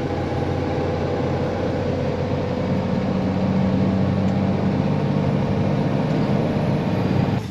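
Steady engine drone and road noise inside the cab of a rollback tow truck cruising on the highway, the engine's low hum growing a little stronger partway through.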